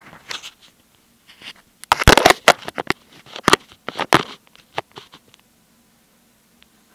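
Camera handling noise: rustling, rubbing and scattered knocks as the recording device is moved about and set in place, thickest around two seconds in, then quiet for the last second or so.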